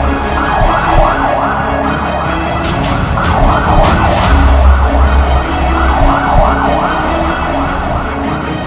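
Ambulance siren in a fast yelp, sweeping about three times a second, over background music with a deep bass.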